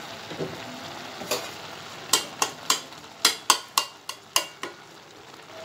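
Slotted spatula stirring a pan of boiled-down vegetables and spices, scraping and knocking against the pan about ten times in quick succession, over a soft simmering hiss.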